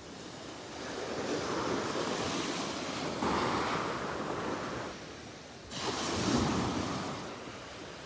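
Small waves breaking and washing up a sandy beach in two swells of foamy surf, the second starting suddenly about halfway through.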